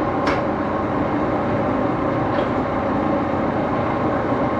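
Axelson metal lathe running steadily after being sped up: a continuous machine hum with several steady tones, and a faint tick about a third of a second in.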